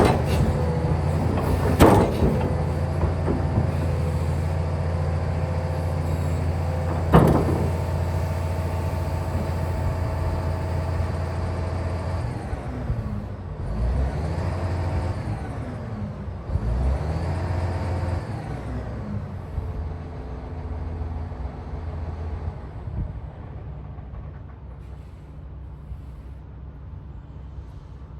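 Kobelco SK500LC-9 excavator's diesel engine and hydraulics running under load, with three sharp metal clanks in the first seven seconds. Later the engine pitch falls and rises twice, then settles lower and quieter as the throttle is brought down.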